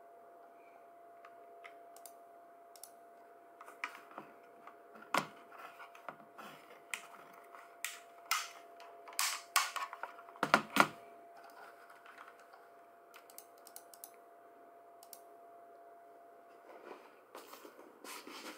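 Computer keyboard clicking and rattling: scattered key clicks and a few heavier knocks as the keyboard is handled and lifted, over a faint steady hum.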